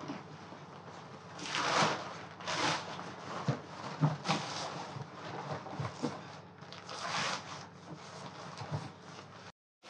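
Inflatable life raft fabric rustling and swishing as it is handled and unfolded, in several long swishes with a few light knocks.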